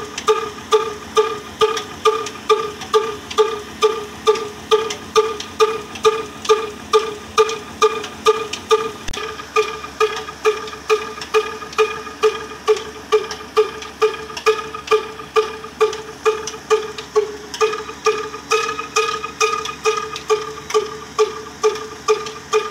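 Slow single-cylinder horizontal stationary diesel engine with a heavy flywheel running steadily, belt-driving a flour-mill grinder. Its exhaust gives an even, pitched beat of about two to three pops a second, and from about ten seconds in the pattern grows busier, with extra knocks between the beats.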